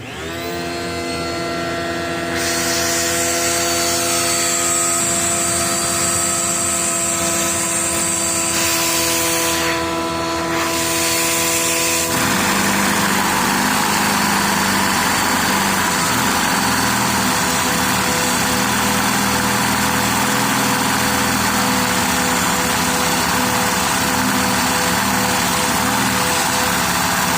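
Vacuum cleaner motor switched on, spinning up to a steady whine. About twelve seconds in, its sound changes to a rougher rushing as it draws air through a LEGO inline-two vacuum engine, which runs with a faint pulsing underneath.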